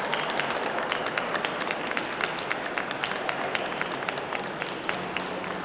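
Audience clapping, many sharp individual claps that thin out and fade over a few seconds.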